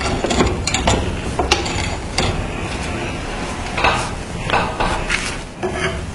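Rusted knife being handled on a hard surface: irregular sharp metal clinks, taps and short scrapes.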